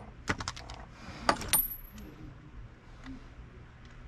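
Small metal tools and parts clicking and clinking during hand reassembly of a Shimano Stella spinning reel: a quick run of light clicks, then two sharper clinks with a brief high ring about a second and a half in, then a few faint ticks.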